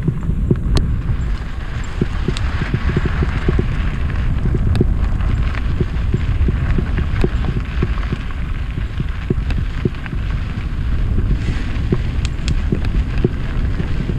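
Mountain bike riding fast down a dirt singletrack: a steady rumble of tyres on dirt and wind on the microphone, with frequent irregular rattles and knocks from the bike over bumps.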